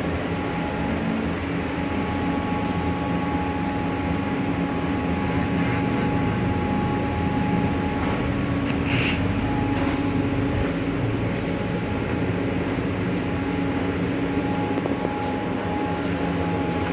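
Laminating machine running: a steady mechanical hum from its motor and fans with several steady tones, and a short hiss about nine seconds in.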